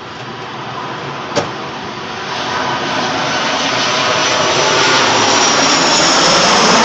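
Jet airliner on landing approach passing low overhead: a steady rush of engine noise that grows steadily louder, with a high whine coming in during the second half and slowly falling in pitch. A single sharp click about a second and a half in.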